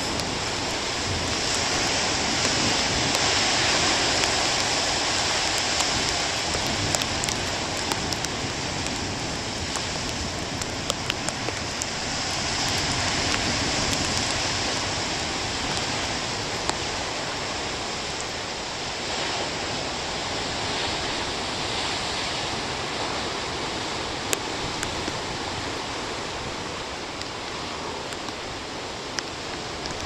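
Heavy storm surf breaking and washing over a rocky shore: a steady rush of water that swells and eases twice, with a few small clicks scattered through.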